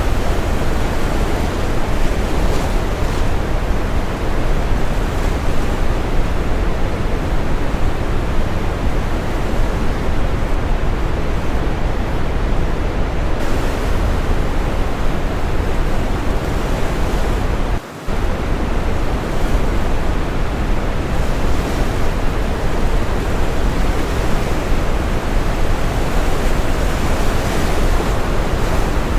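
Steady brown noise mixed with ocean surf, a dense deep rush of waves washing in. About two-thirds of the way through, the sound drops out for an instant.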